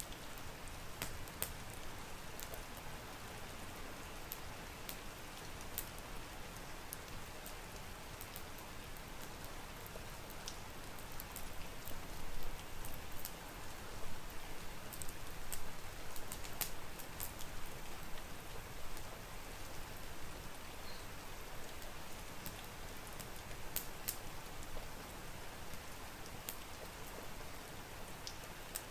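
Steady rain mixed with a crackling wood fire: an even rain noise with scattered sharp pops and crackles, a few of them louder about halfway through.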